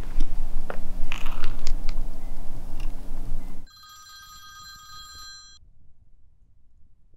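Steps and scattered clicks over a loud noisy background with a steady low hum, cut off suddenly about three and a half seconds in. Then an old rotary desk telephone's bell rings once for about two seconds and stops.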